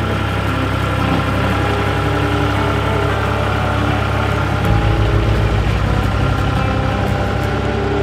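1999 John Deere 250 skid steer's three-cylinder turbo diesel running while the machine drives down the trailer ramps. A little past halfway a deeper, pulsing throb sets in.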